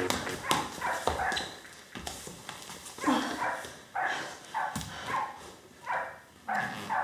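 An elderly woman sobbing and wailing in short, repeated cries, some falling in pitch.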